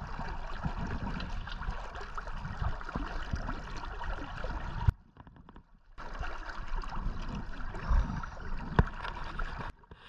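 River water lapping and sloshing close to the microphone, with a couple of sharp knocks. The sound nearly cuts out for about a second around the middle and again briefly near the end.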